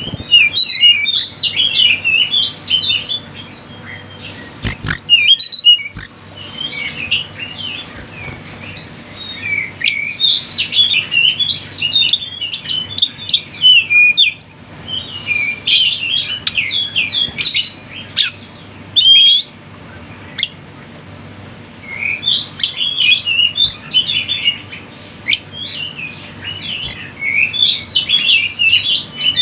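Tledekan gunung songbird twittering: fast, busy bursts of high chirps and trills lasting several seconds, broken by short pauses, over a faint low hum.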